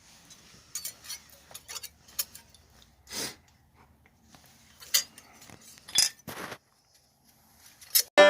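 Metal hand tools clinking and knocking: scattered short sharp clinks, with a brief rattle about three seconds in and a few louder clinks around five to six seconds.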